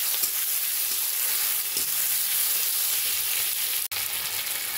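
Sliced onions and ginger-garlic paste sizzling steadily in hot oil in a karai as they are stirred and fried towards brown, with a few light taps of the spatula. The sound drops out for a split second about four seconds in.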